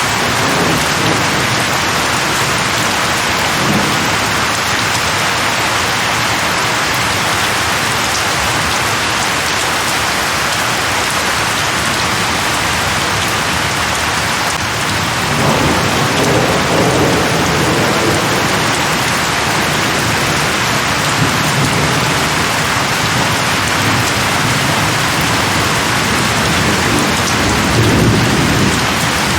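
Steady heavy rain falling on leaves, with low rolls of distant thunder, the longest starting about halfway through and another near the end.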